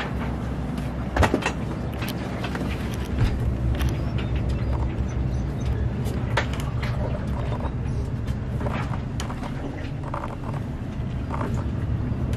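A steady low motor drone with several even tones, and scattered light knocks and clicks over it.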